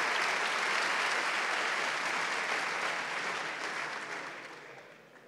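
Audience applauding, a dense patter of clapping that dies away over the last two seconds.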